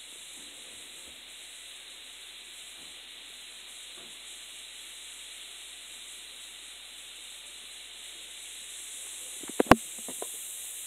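Bath bomb fizzing steadily in bathwater, a soft even hiss that grows a little louder near the end as it breaks apart and releases its colour. A sharp click or knock near the end is the loudest sound.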